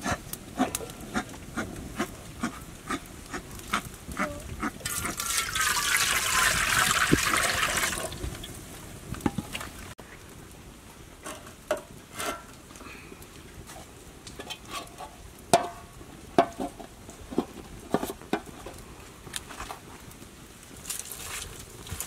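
Water poured into a wok for about three seconds, a few seconds in, with a hissing splash. Before and after it come short clicks and knocks of cookware: a bamboo steaming rack, a plate and a metal wok lid being set in place.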